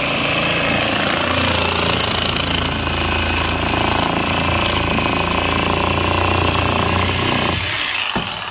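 A loud engine running steadily with a thin high whine. Near the end it is shut off: the whine falls away and the running stops, followed by a single knock.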